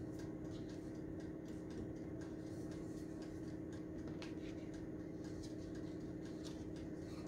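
Faint scattered ticks and light rustles of a paper sheet being handled and lined up around a skinny tumbler, over a steady low hum.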